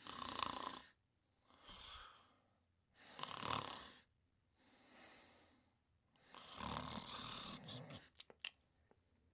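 Cartoon characters snoring: three loud snores alternating with two softer ones, the last loud snore the longest, then a few faint clicks near the end.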